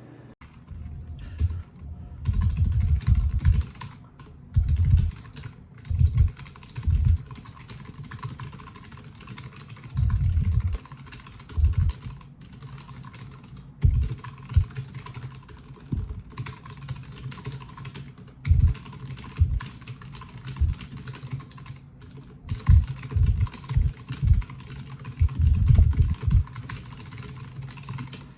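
Keys of a Logitech G915 TKL low-profile mechanical keyboard being pressed in irregular runs, with short pauses between them, as the keys are tested one by one.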